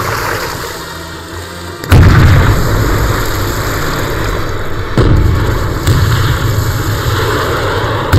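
Film battle sound of artillery shells exploding in water and on a riverbank. A loud, deep blast comes about two seconds in, two more about five and six seconds in, and another at the very end, with a steady rushing noise between them.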